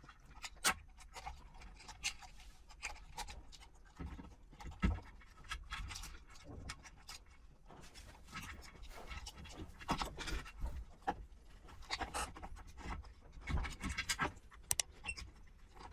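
Scattered light clicks, taps and scratching from handling a Xiaomi electric scooter's controller board and fitting its wire connectors inside the deck, with a sharper knock about five seconds in.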